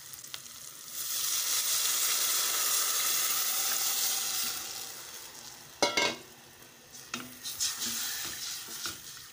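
Tamarind water poured into a steel pot of hot fried onion and tomato masala, setting off a burst of sizzling about a second in that dies away over a few seconds. Then a sharp knock against the pot, followed by a wooden spoon stirring and scraping through the curry.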